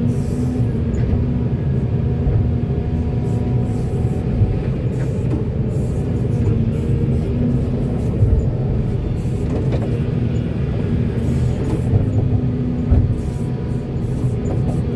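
Heavy diesel construction machinery running steadily: a continuous low engine rumble with a steady hum.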